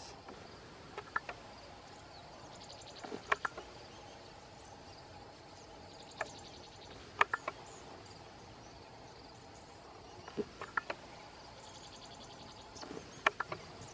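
Insects buzzing in pulsing trains over a steady background hush, with short sharp clicks coming in quick groups of two or three every few seconds.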